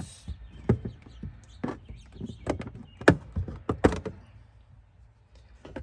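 A plastic trim cover on a car's rear being pulled off by hand, giving a series of sharp clicks and knocks about a second apart over the first four seconds, then quieter handling.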